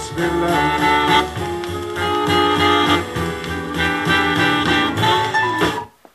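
Instrumental music played from a vinyl record on a vintage Elac Miracord 50H II turntable. It cuts off suddenly near the end as the record is stopped, leaving a faint click.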